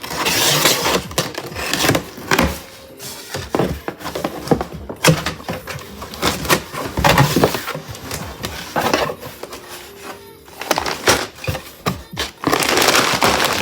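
A big cardboard shipping box being opened and unpacked by hand: irregular tearing, rustling and crinkling of cardboard and packaging, broken by sharp knocks and thunks.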